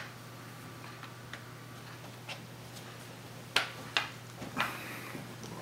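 Plastic back cover of an Asus Eee Slate tablet being pressed onto its frame by hand, its clips clicking: a few light clicks, then two sharper clicks about three and a half seconds in, followed by a brief rubbing of plastic.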